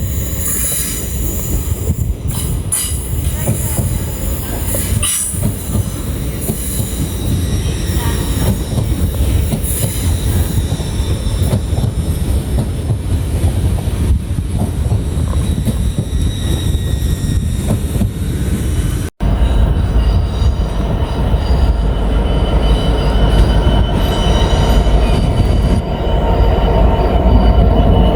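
A train moving through the station: a steady low rumble with high-pitched squealing from the wheels on the rails. The sound breaks off for an instant about two-thirds of the way through and comes back louder, with a heavier rumble and a steadier squeal.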